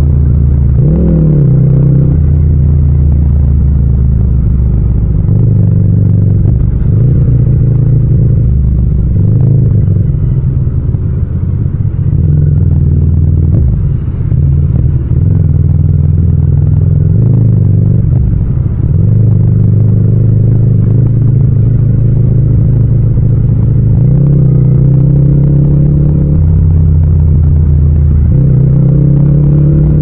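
Yamaha MT-07's 689 cc parallel-twin engine pulling through low-speed city riding, heard close up. Its pitch climbs briefly about a second in and twice near the end, with steadier running in between.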